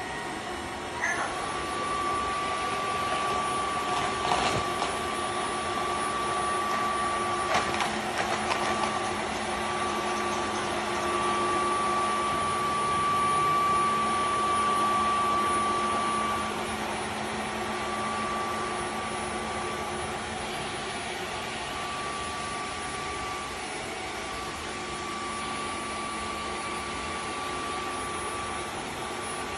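Dreame H14 cordless wet-dry vacuum mop running in auto mode: a steady motor hum with a high whine and a held mid tone, swelling somewhat in loudness during the first half. A couple of brief knocks come about four and eight seconds in.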